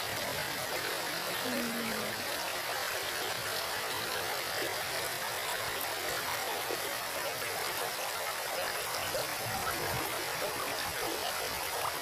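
Shallow river water running over stones: a steady rushing with no rhythm.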